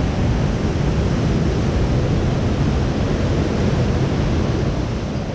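Rushing water from the river and waterfall beside the hot spring pools, a loud, steady roar.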